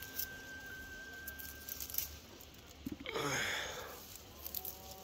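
Leaves and branches of a plum tree rustling as the fruit is picked by hand, with scattered small clicks and a louder rustle about three seconds in.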